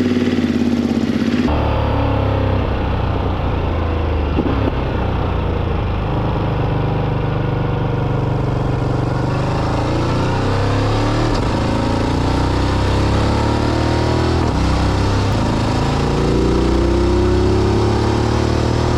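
Ducati DesertX's V-twin engine running under way, its pitch climbing and dropping again several times as the motorcycle accelerates and shifts gears.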